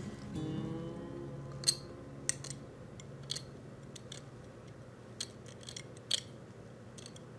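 Small sharp clicks and ticks, about half a dozen spread unevenly, of tools and small parts being handled while a die-cast toy truck is glued back together. Faint background music fades out in the first few seconds.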